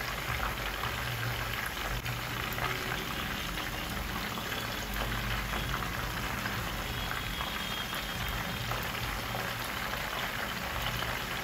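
Croaker fish pieces deep-frying in a pan of oil: a steady bubbling sizzle. The fish went into the oil frozen and is frying on low heat.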